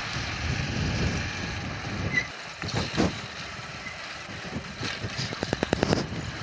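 Motorcycle engine running at low speed, with wind and road noise on the microphone. A quick run of sharp, evenly spaced clicks comes a little over five seconds in.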